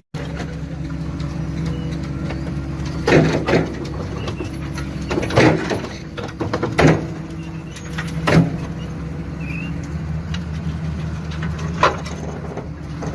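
Heavy machine's engine running steadily, with several loud knocks standing out over it, about every second and a half to two seconds through the middle and once more near the end.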